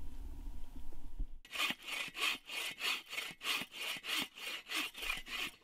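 A folding bow saw cutting into the trunk of a big dead tree, in steady back-and-forth strokes of about three a second. The sawing starts abruptly about a second and a half in.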